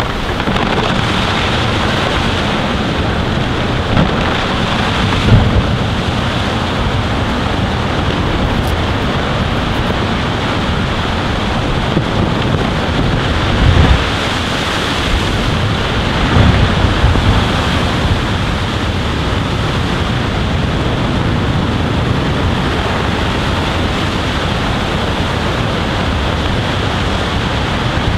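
Wind buffeting the microphone with water washing, broken by several low thuds as a small iceberg breaks apart and falls into the sea: a couple a few seconds in, then more about halfway through as the ice collapses.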